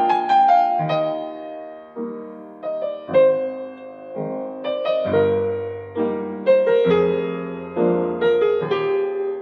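Background piano music: chords and melody notes struck and left to fade, at a slow, gentle pace.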